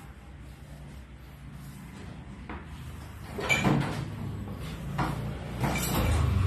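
Knife blade cutting through a sheet of monay bread dough and knocking against the wooden table, a few dull thuds over a low steady hum, the loudest about halfway through and near the end.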